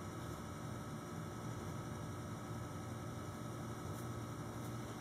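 Steady low electrical hum over quiet room tone, with no distinct event.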